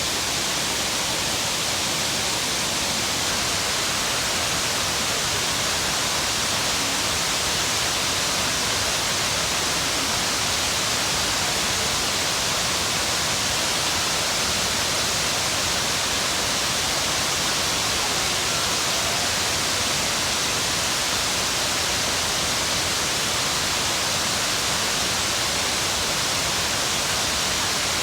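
Shiraito Falls' waterfall: water pouring and splashing in a steady, even rush that holds unchanged throughout.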